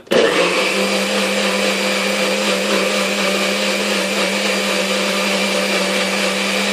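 Kitchen blender starting up and running steadily, blending a shake; a constant motor hum whose pitch settles slightly higher just under a second in.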